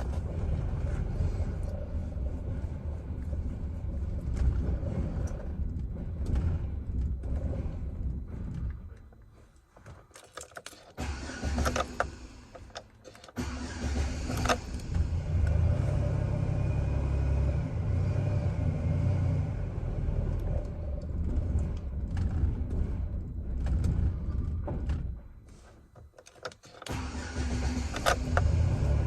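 Chevrolet Silverado engine idling roughly on a nearly dead battery. The running dies away twice, about a third of the way in and again near the end, and each time it comes back after a short stretch of clicks and cranking.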